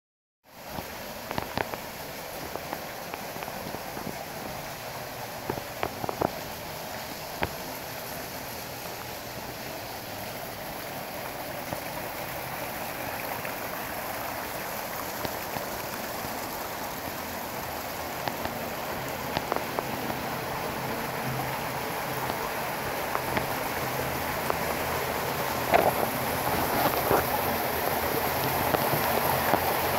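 Water splashing and trickling down a stacked-rock waterfall and along a rock-lined stream, a steady rushing that grows gradually louder toward the end.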